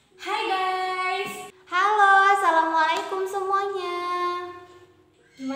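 Young female voices singing out two long held phrases. The first lasts about a second; the second is longer, drifts down in pitch and fades out near the end.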